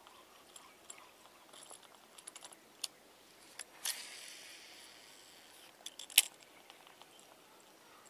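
Fishing reel during a cast: a few light clicks and rattles as the rod and reel are handled, then a steady whirring hiss of the spool paying out line for about two seconds, ended by a sharp click as the reel is engaged.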